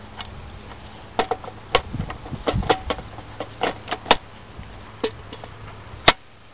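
Plastic clicks and knocks from a generator power inlet box: its hinged weatherproof cover is flipped open and the generator cord's plug is pushed into the inlet, a string of irregular clicks ending in one sharp snap near the end.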